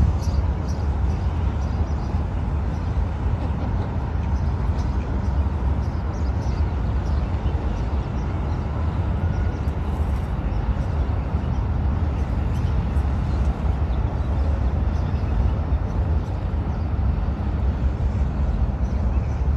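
Steady outdoor ambience, mostly an even low rumble, with faint short high chirps scattered through it.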